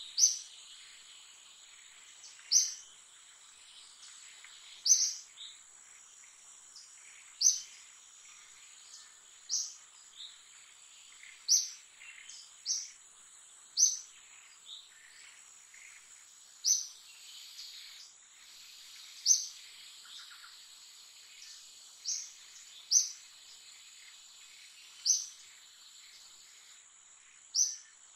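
A bird repeating one short, high call every two to three seconds, over a steady high-pitched insect drone.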